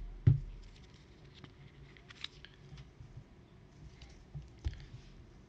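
Trading cards and a card pack being handled on a table: two sharp knocks right at the start, light clicks and rustles, and another knock near the end.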